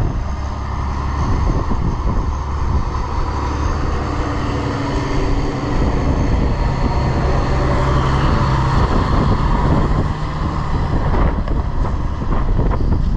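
Heavy vehicle engine with a chrome exhaust stack running steadily at a low, even speed, with a slight change in its tone about a third of the way in.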